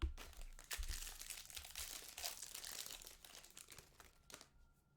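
Foil trading-card pack wrapper crinkling and crumpling, with a thump at the start, then a dense crackle that dies away near the end.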